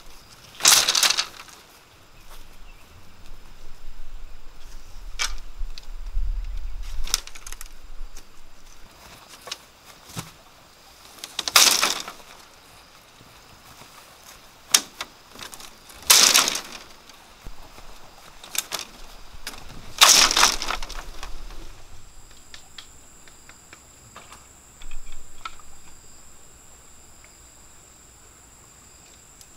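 A bamboo lattice panel rustling and clattering as it is handled and laid on grass, in four sharp swishes with light clacks of bamboo strips between them. From about two-thirds of the way through, insects keep up a steady high-pitched drone.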